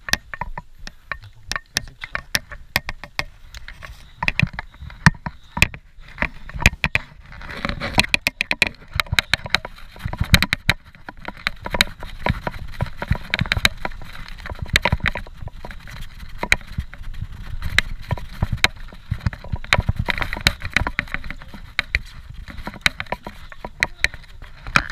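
Scott Genius 740 mountain bike riding a rough dirt trail: a steady low rumble of tyres on the ground under dense, irregular clicks and knocks as the bike jolts over bumps.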